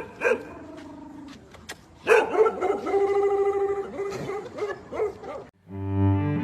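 A dog barks once, then gives a long, wavering call of about three seconds that stops abruptly. Low bowed-string music starts near the end.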